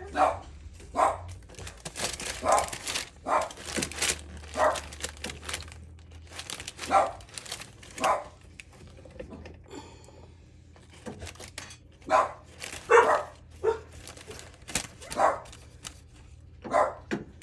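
A dog barking over and over in short, separate barks, about one a second, with a pause of a few seconds midway.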